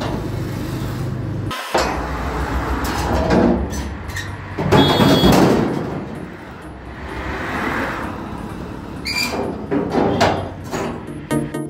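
Ratchet tie-down straps being released from an SUV's wheel and pulled free on a car-carrier truck's perforated steel deck: metal buckles clanking and rattling, and webbing dragging over the floor in irregular bursts.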